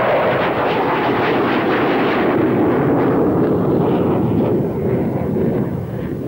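Grumman X-29A's General Electric F404 turbofan engine running as the jet comes in to land: a loud, steady jet noise that eases slightly in the second half.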